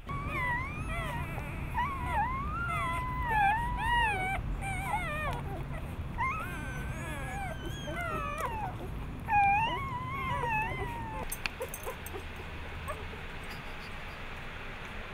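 Newborn Bernese Mountain Dog puppies whimpering and squealing: high, wavering cries that rise and fall in short broken runs, stopping about eleven seconds in.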